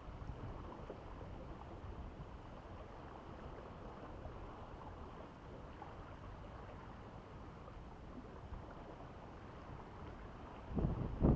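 Seashore ambience: a steady low rumble of wind on the microphone and sea against the rocks, with a sudden louder buffet of wind on the microphone near the end.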